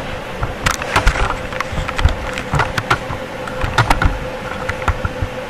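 Irregular light clicks and knocks of metal as a pilot bushing puller is worked on the end of a crankshaft, over a steady hum.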